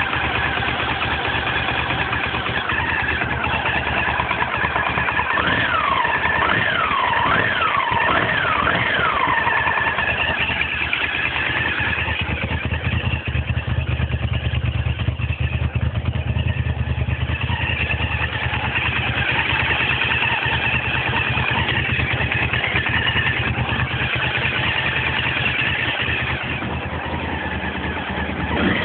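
Honda VTR1000's 90-degree V-twin engine running steadily at about idle, heard close to the exhaust. It makes four quick rising-and-falling pitch sweeps in the first third.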